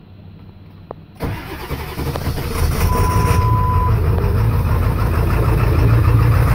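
Ford 7.3 L Powerstroke V8 turbodiesel cold-started with only one bank of glow plugs working: about a second in the engine catches and quickly settles into a steady idle. A single one-second beep sounds about three seconds in.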